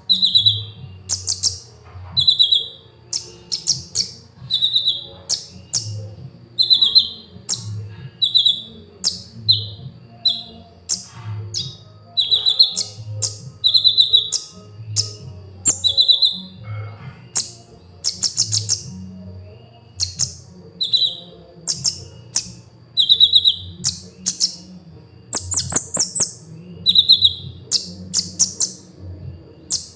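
Sunbird (kolibri ninja) chirping over and over in a lively run of short high notes, about one or two a second. Slightly lower notes with a falling tail mix with sharper, higher squeaks, over a faint low hum.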